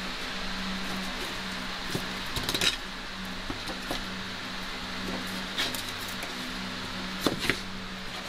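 Chef's knife cutting jerk pork on a wooden cutting board, with a few sharp knocks and metal clinks of the knife and fork against the board, two of the loudest close together near the end. A steady hum runs underneath.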